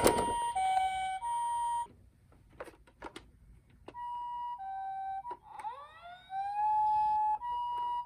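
Electronic sirens of toy emergency vehicles. A two-tone hi-lo ambulance siren alternates between two notes, drops out for about two seconds with a few clicks, then resumes. About halfway through, a wailing siren sweeps upward and levels off before the two-tone returns.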